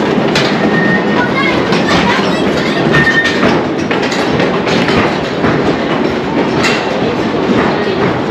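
1932 Heidrich/Haase scenic railway coaster train rolling along its track, wheels rumbling steadily with irregular clicks and clacks.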